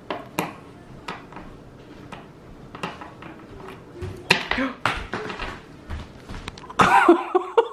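Hard candy clicking and tapping against a wooden tabletop as it is handled, a few scattered light knocks, with brief voices about four seconds in and near the end.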